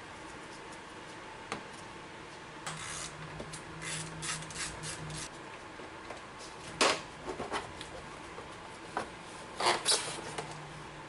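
Metal hand tools and parts clinking and scraping, with scattered sharp clicks and two louder knocks about seven and ten seconds in.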